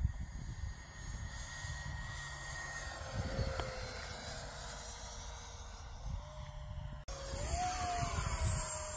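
Electric ducted fan of a radio-controlled E-flite F-35, a brushless motor on a 6S LiPo, whining steadily as the model jet flies past. The whine's pitch sags, rises again about six seconds in, then cuts off abruptly and returns louder with a quick rise and fall.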